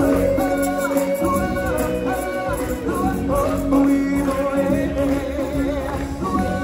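Music with singing from a stage musical performance, held sung notes over the accompaniment.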